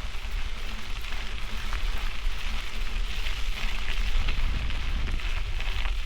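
Mountain bike tyres rolling over a dirt and gravel road, a steady crackling crunch, with wind rumbling on the bike-mounted microphone.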